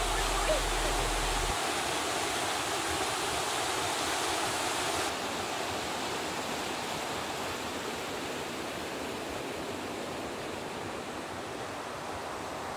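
Mountain stream rushing in small cascades over bare rock slabs: a steady rush of water, slightly duller about five seconds in.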